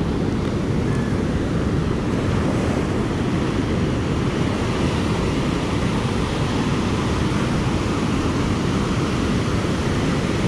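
Ocean surf washing steadily onto a beach, with wind on the microphone.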